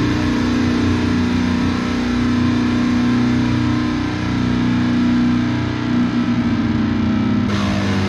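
Slow, droning metal outro with distorted electric guitar holding long low notes over a dense bass bed. The sound turns brighter and fuller about seven and a half seconds in.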